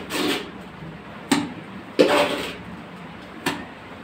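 Straw brush and hand working in a plastic bucket of cement mortar: a few short scraping swishes, with two sharp knocks against the bucket.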